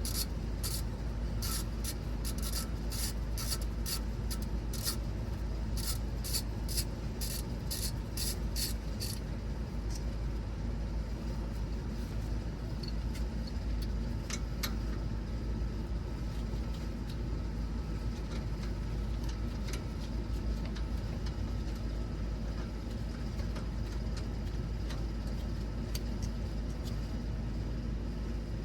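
Hand ratchet wrench clicking in quick runs for the first several seconds, then only now and then, over a steady low hum.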